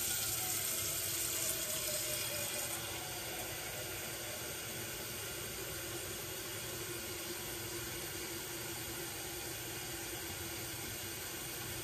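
Kitchen tap running steadily into a cooking pot as it fills with water for rice, with a faint tone sliding slowly downward under the rush. The flow stops abruptly at the end.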